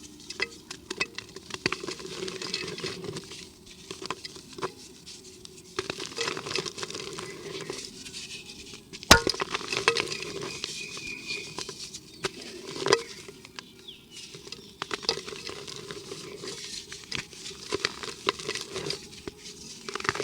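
Dry cement and dirt crumbling against a clay pot: continuous gritty crackling and patter, with scattered sharp clicks. The sharpest click comes about nine seconds in, another about thirteen seconds in.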